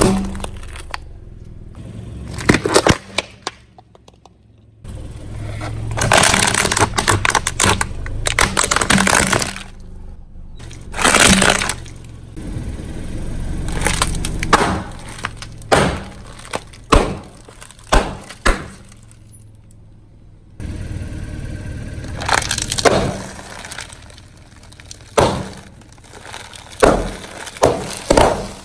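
A car tyre slowly rolling over and crushing a run of objects, plastic items and sealed bags of crunchy snacks, with repeated cracking, crunching and sharp pops as the packets burst and the chips inside break up.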